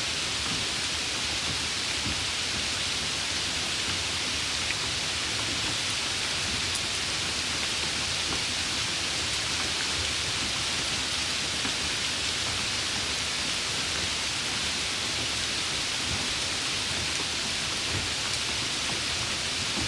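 Light rain falling steadily: an even hiss, with a few faint drop ticks.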